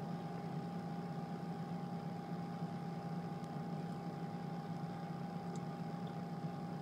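Steady electrical-type hum, a low drone with a constant higher tone above it, with a few faint ticks in the second half.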